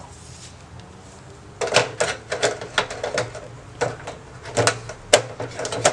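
365nm LED black-light tubes being set into a fluorescent light fixture's sockets: an irregular run of sharp plastic-and-metal clicks and clacks, starting about a second and a half in.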